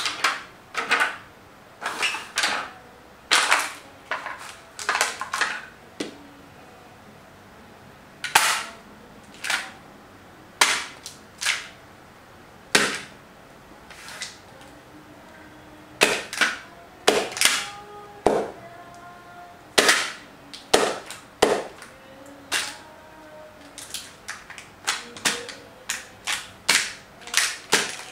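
Small clear plastic items cracking and crackling as they are crushed under the block heels of leather shoes stepping on them on a tile floor. The sharp cracks come in irregular clusters with short pauses between.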